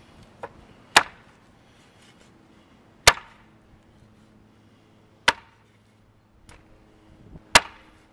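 Machete chopping through an iguana carcass into a wooden plank: four sharp chops about two seconds apart, with a couple of lighter taps between them.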